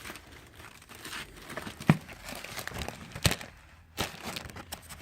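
Crinkling of packaging as small boxed fireworks are handled during unboxing, with three sharp knocks as items are picked up or set down.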